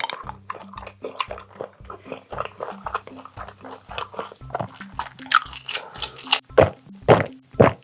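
Close-miked chewing of blanched baby octopus with roe: a steady run of short, wet bites and chews, a few louder ones in the second half, over soft background music.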